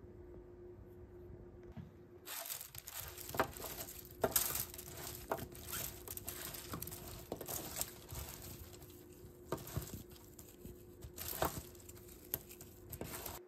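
Raw broccoli florets being tossed by hand on a foil-lined baking tray: aluminium foil crinkling and florets rustling in irregular crackles and clicks, starting about two seconds in.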